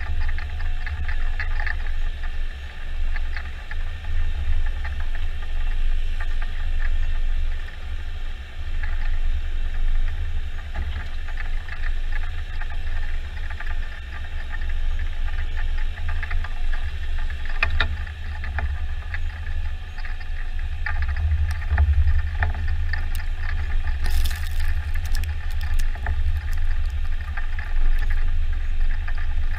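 Jarcrac Dual tracked forwarder driving loaded with pulpwood: its engine runs steadily with a deep low rumble, with rattles and clicks from the machine and load. A brief high hiss comes about three-quarters of the way through.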